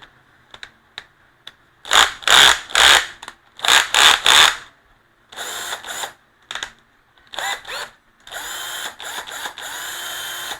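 Bosch 14.4 V cordless drill driver run in short trigger bursts, several quick pulses, then a steady run of about two seconds near the end. A few light clicks come before the first burst.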